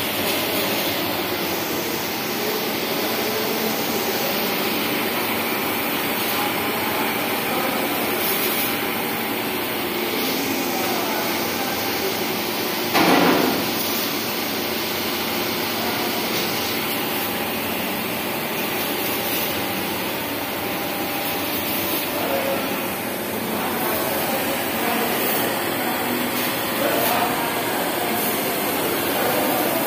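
Steady hiss and hum of an automatic linear TIG seam welder at work, the arc burning while a motor-driven carriage carries the torch along the seam. A short, louder noise breaks in about thirteen seconds in.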